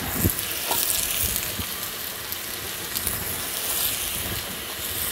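Lamb shoulder pieces browning in hot butter in a stainless steel pot, sizzling steadily, with onion and carrot chunks going in; the sizzle swells twice. A short knock sounds just after the start.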